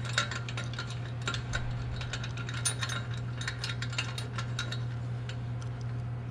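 Hand ratchet wrench clicking in quick, irregular runs as the exhaust clamp nuts are turned, with a steady low hum underneath.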